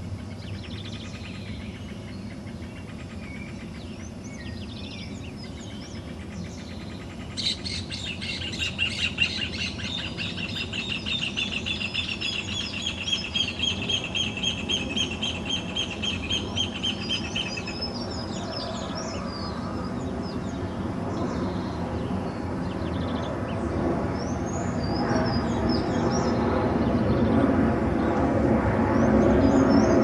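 Dawn chorus of many birds chirping and calling. About seven seconds in, one bird starts a long, rapid trill of repeated notes that lasts about ten seconds. Underneath is a low rumble that grows louder near the end.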